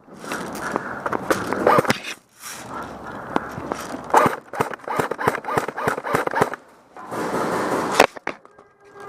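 Airsoft guns firing: irregular sharp cracks and short rapid runs of shots, over the rustle and scuffle of players moving in gear.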